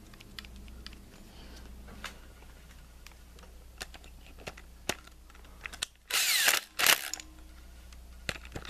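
Cordless drill driving in the water pump's 10 mm bolts: a few faint clicks of bolts being started by hand, then about six seconds in a loud run of about half a second and a brief second burst.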